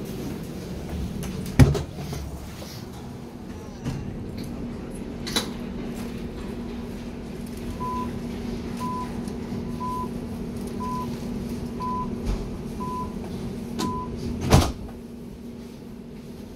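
DT5 U-Bahn train's door-closing warning: seven short beeps about a second apart, then the sliding doors shut with a heavy thump. A steady hum from the standing train runs underneath, with a sharp knock a couple of seconds in.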